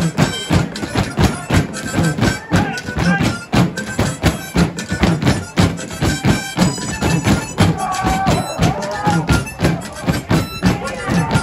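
Traditional Danza de los Diablos music: a reedy harmonica melody over a steady low buzz, with the dancers' boots stamping on the stage floor in a quick, heavy rhythm several times a second.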